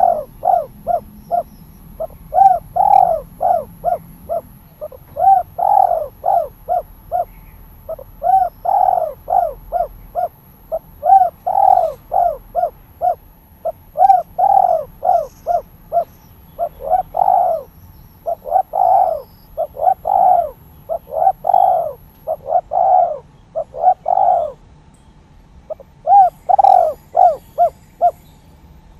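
Spotted dove (tekukur) cooing over and over in quick phrases of short, rounded coos, with a brief pause near the end.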